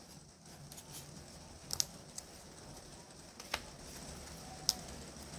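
Thin laser-cut plywood model-kit sheets handled and pressed, giving a handful of light, sharp wooden clicks and ticks spaced a second or so apart.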